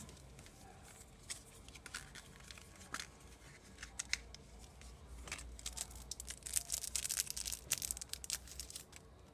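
Packaging being handled: a paper insert and a thin clear plastic sheet rustling and crinkling, with scattered clicks, busier and crisper over the last few seconds.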